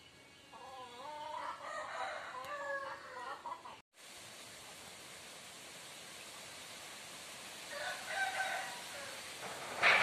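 A rooster crowing, one long wavering call of about three seconds, then a shorter call about eight seconds in, over a steady background hiss. A brief loud burst of hiss comes right at the end.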